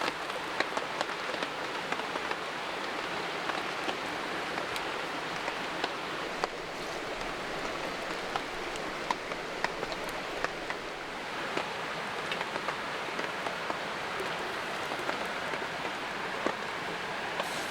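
Steady light rain falling, with many single drops ticking sharply at random through the hiss.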